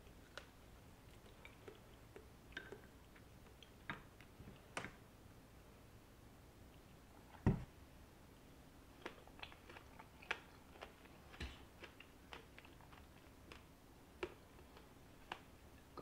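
Faint, scattered small clicks and soft handling sounds at a glass bowl of yogurt and strawberries, with a dull thump about seven and a half seconds in and a lighter one a few seconds later.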